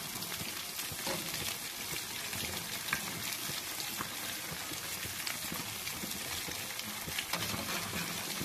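Batter-coated fish pieces sizzling steadily in hot oil in a metal karahi, with a few light scrapes and taps as a slotted spatula turns them over.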